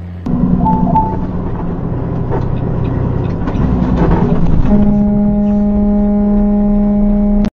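Semi truck towing a loaded tanker, struggling to stop, with loud engine and road noise and two short high beeps about a second in. About two-thirds through, its air horn sounds in one long steady blast that cuts off at the end.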